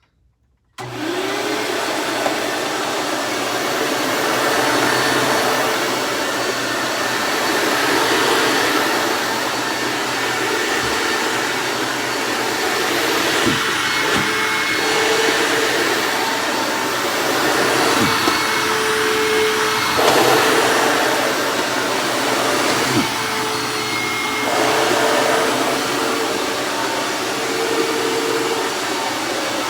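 Hoover WindTunnel Self-Propelled Ultra upright vacuum cleaner switched on about a second in, its motor spinning up at once to a loud, steady whine over rushing air, and running on. The tone shifts slightly now and then, with a few light knocks as it runs.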